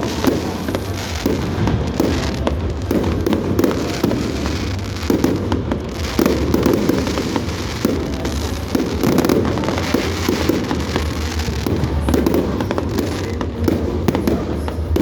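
Large aerial fireworks display: shells bursting and crackling in rapid, continuous succession.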